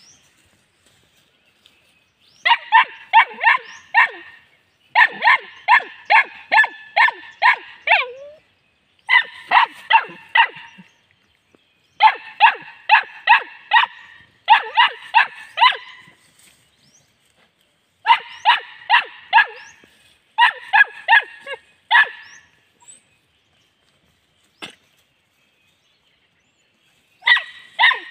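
A young dog yapping at play in quick runs of sharp, high barks, several a second, about eight runs with short pauses between.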